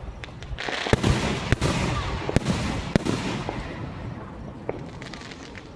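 Fireworks going off: a string of sharp bangs with crackling in between, the loudest about a second, a second and a half, two and a half and three seconds in, thinning out after that.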